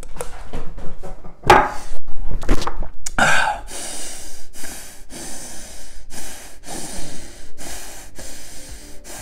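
A man gulping down a glass of espresso, then exhaling in loud gasps. About four seconds in, background music with a steady beat starts.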